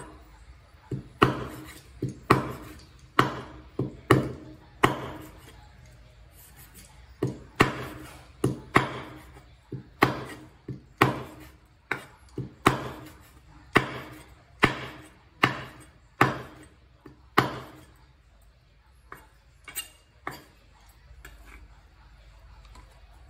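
Kitchen knife chopping pork into mince on a wooden cutting board: sharp knocks of the blade on the board, about one a second. There is a short pause about six seconds in, and a few fainter knocks near the end.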